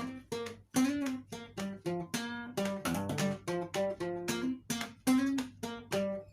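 Music: an acoustic guitar plucked in a quick, even pattern of single notes and short strums, about three a second.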